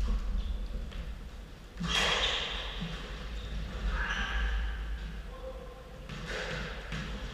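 Lull between squash rallies: footsteps and shoe scuffs on the court's hardwood floor, with a few short rushes of breath from the players.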